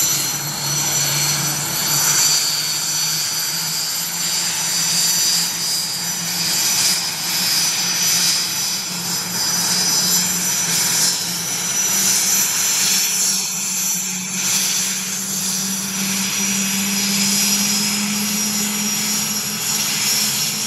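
IAR 330 Puma twin-turbine military helicopter running on the ground with its rotors turning: a steady engine and rotor noise with a high turbine whine, its pitch creeping up slowly as the engines spool up before takeoff.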